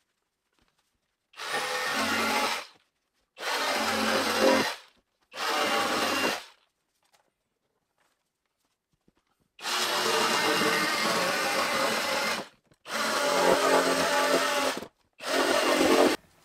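Jigsaw cutting through plasterboard and the OSB behind it to enlarge a round wall hole, run in six short bursts with the motor stopping in between; the longest pause comes just before the middle.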